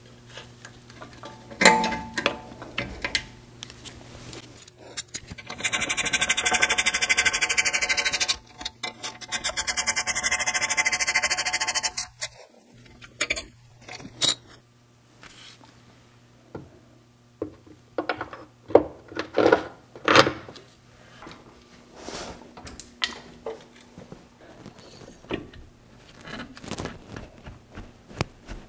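Two bursts of rapid, even ratcheting, each a few seconds long and the loudest thing here, from a ratchet fastening the front brake caliper hardware. Scattered metal clinks and knocks of brake parts being handled come before and after.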